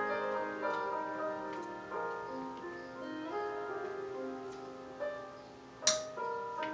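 Background piano music. A single sharp click about six seconds in.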